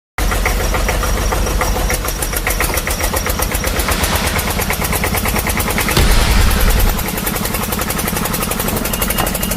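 An engine running with a rapid, even knocking beat. It gets louder and deeper for about a second around six seconds in, then settles back.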